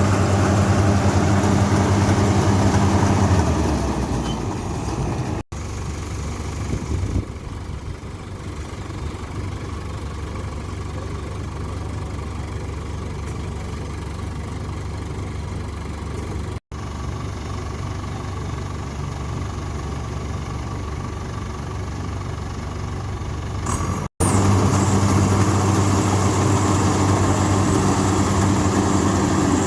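A large engine running steadily with an even hum. A few seconds in it gives way to a quieter, rougher rumble, then the steady hum comes back after a sudden cut about 24 seconds in.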